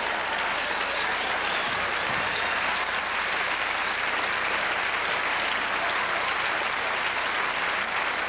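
Audience applauding and laughing; the applause holds steady throughout.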